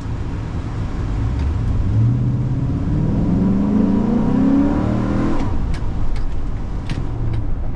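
Chevrolet SSR's 6.0-litre LS2 V8 heard from inside the cab, its note rising as the truck accelerates for a few seconds, then dropping back to a steady low rumble about five seconds in as the throttle eases off.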